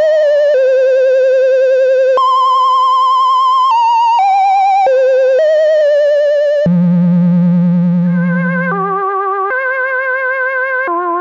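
Moog Prodigy two-oscillator monophonic analog synthesizer playing a lead melody one note at a time, each note with vibrato, stepping up and down in pitch. About two-thirds through, the tone turns darker and slightly quieter as its bright top end drops away.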